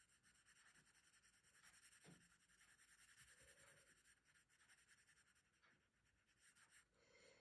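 Very faint scratching of a graphite pencil shading on paper in quick short strokes, about four or five a second, stopping for a moment near the end.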